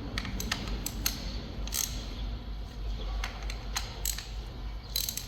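Irregular light clicks and taps of hand tools and engine parts being handled, over a low steady hum.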